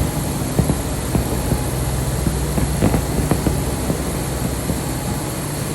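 Fireworks going off: short, irregularly spaced pops and bangs over a steady low rumble.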